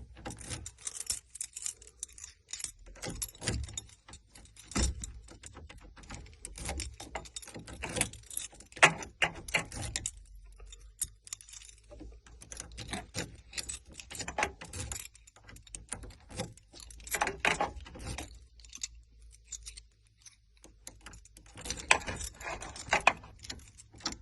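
A ring of locksmith try-out keys jangling as one key after another is pushed into a 1994 Ford E350 ignition lock and wiggled, in irregular bursts of metal clicks and rattles. None of them turns the cylinder: the steering wheel is locked, which keeps the ignition from turning.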